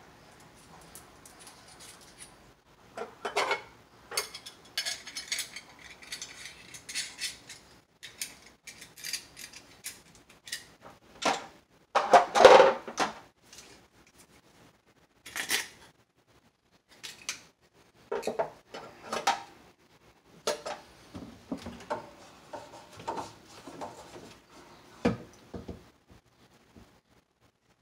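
Hand tools and small metal parts clinking, knocking and being set down on the steel top of an electric water heater, in scattered irregular clatters, loudest about twelve seconds in.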